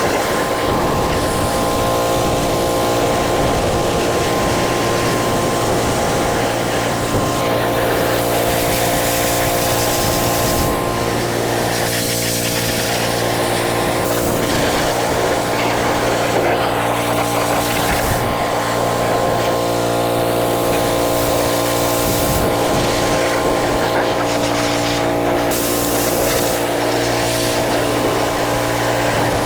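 Pressure washer running steadily with a constant motor drone, spraying water onto the bike parts.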